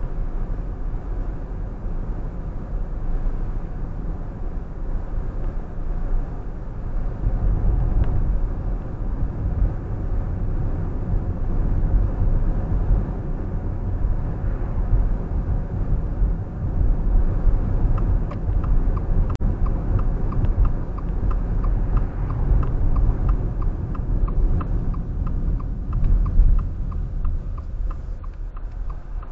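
Car driving, with steady low road and engine rumble throughout. About two-thirds of the way through, the turn-signal indicator ticks evenly for several seconds, then stops.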